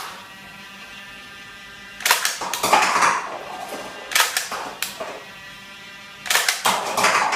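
Nerf Stockade foam-dart blaster being primed and fired in several quick groups of sharp clacks. Plastic cups clatter as darts knock them off a stacked pyramid.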